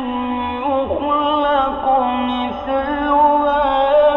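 A man reciting the Quran in a melodic, drawn-out style. He holds long ornamented notes whose pitch wavers, with short downward slides about one and two and a half seconds in.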